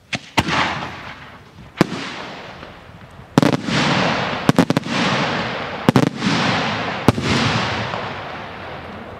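Italian aerial salute shells bursting overhead in daylight: a series of sharp, loud bangs, some single and some in quick clusters of two to four, each followed by a rolling echo that dies away over a second or more.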